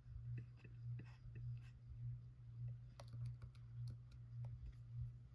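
Faint, scattered clicks of a computer keyboard and mouse, over a low, pulsing hum.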